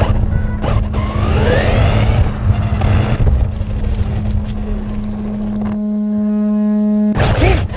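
Fast battery-electric RC car running at speed, its motor whine rising as it accelerates about a second in, over a steady rumble from the tyres and wind. Near the end the whine holds at a steady pitch and grows louder.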